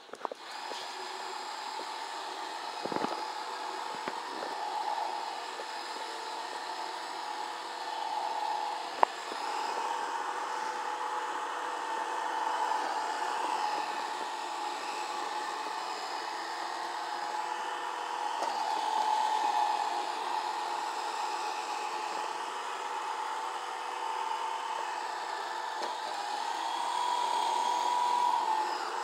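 iRobot Roomba robot vacuum running: a steady high whine from its motor and brushes that swells and fades as it moves about. There are a few sharp knocks early on, the loudest about nine seconds in.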